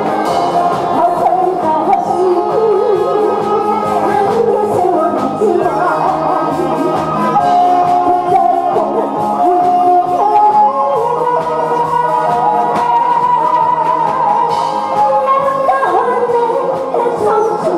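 A woman singing a Korean song into a microphone with a wavering vibrato, over amplified instrumental accompaniment with a steady beat.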